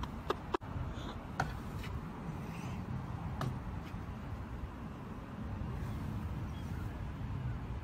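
Steady low outdoor rumble, with several short sharp clicks in the first few seconds.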